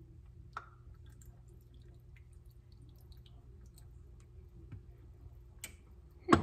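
Glass jar of capers being shaken out over a small cup: a sharp clink about half a second in, faint drips and light clicks of brine and capers falling, then a loud knock near the end as the jar is set down on the counter.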